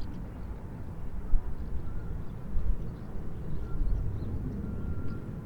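Outdoor park ambience: a steady low rumble that swells unevenly, with faint, short, distant chirps scattered through it.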